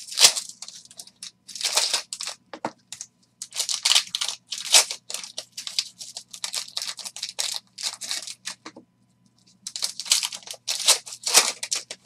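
Foil trading-card pack being torn open and crinkled by hand: a run of short crackling tears, with a pause of about a second about three-quarters of the way through, then more crinkling.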